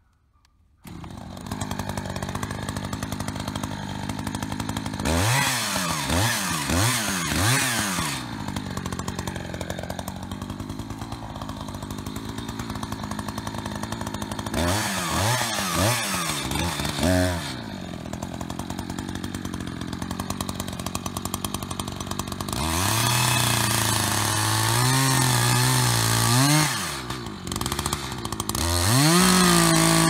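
Two-stroke gas chainsaw starts about a second in and idles, blipped up and down in quick revs several times, then held at a higher speed for a few seconds and revved up again near the end.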